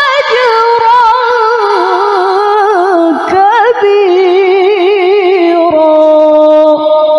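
A woman reciting the Qur'an in the melodic tilawah style, drawing out one syllable in a high, piercing, melodious voice with quick wavering ornaments that step gradually downward. About six seconds in she settles onto one long steady held note.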